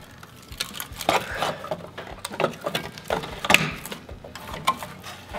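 Short rattling bursts of a cordless impact wrench working the bolts of an exhaust header's heat shield, among irregular metal clanks; the strongest burst comes about three and a half seconds in.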